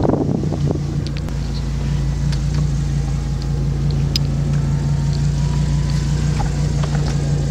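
Audi R8 Spyder's engine idling steadily while its power soft top closes, with a faint rising motor whir and a few light clicks from the top mechanism.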